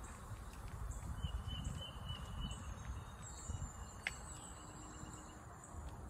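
Outdoor ambience: faint high chirps and whistled notes from small birds over an uneven low rumble of wind or handling on the microphone, with one sharp click about four seconds in.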